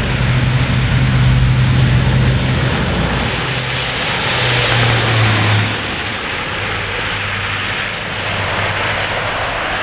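Airbus A400M's four turboprop engines at take-off power, a loud propeller drone with a rushing noise over it. The sound swells as the aircraft passes about five seconds in, then the drone drops in pitch and fades slightly as it moves away.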